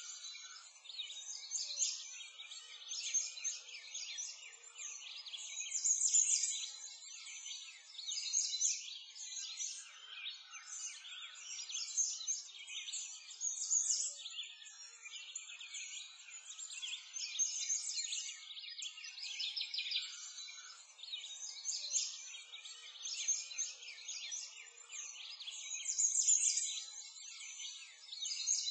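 Many birds chirping and singing in a dense, continuous chorus of high-pitched calls and trills.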